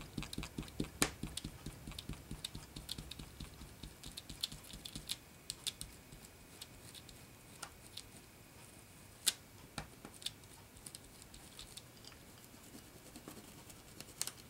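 Light, quick tapping of a microfiber cloth pounced with a fingertip onto a stencil laid over a foil-tape tag, dabbing alcohol blending solution through it to lift the ink. A rapid run of taps in the first couple of seconds gives way to sparser taps with a few sharper clicks.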